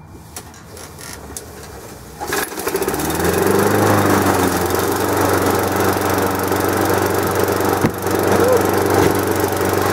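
Craftsman push mower's air-cooled small engine catching about two seconds in on a cold start. It revs up over about a second, then settles into a steady run.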